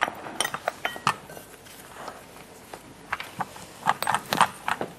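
A rolling pin working dough across a floured worktop: irregular small clicks and knocks as the pin rolls and bumps on the surface, bunched about half a second in and again from about three to four and a half seconds in.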